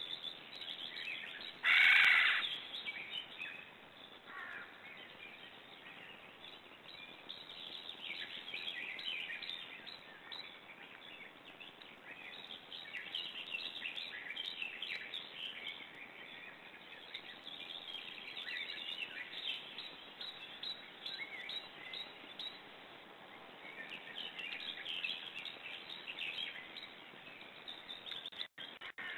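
Wild birds calling: one loud call lasting about a second comes about two seconds in, then many short chirps and trills continue over a steady outdoor hiss. The uploader wonders whether the loud calls are a crane's.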